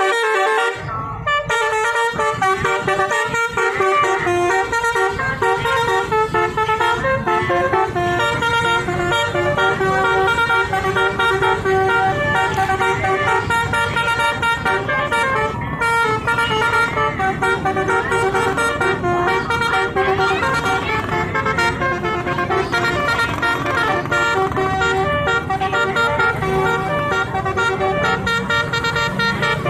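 Basuri multi-tone bus horn playing a melody note after note, over a low steady rumble.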